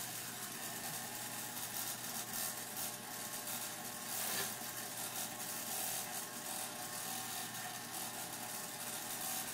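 Electric hair clippers running with a steady buzz while being worked over a scalp, cutting hair short, with light crackling as the blades pass through the hair.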